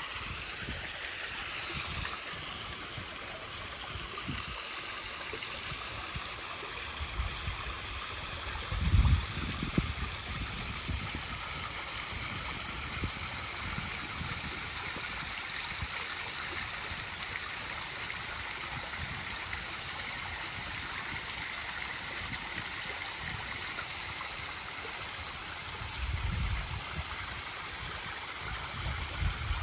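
Waterfall rushing in a steady, even roar of falling water. A few brief low rumbles break in, the loudest about nine seconds in and more near the end.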